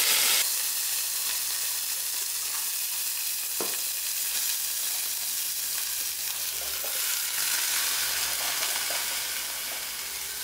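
Sliced cabbage frying in hot oil: a loud sizzle that drops about half a second in to a steady hiss, easing a little near the end as more cabbage is tipped in.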